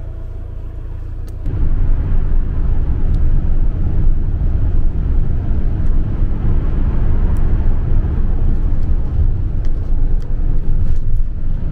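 Camper van on the move, heard from inside the cab: a steady low rumble of engine and tyre noise, which gets louder about a second and a half in.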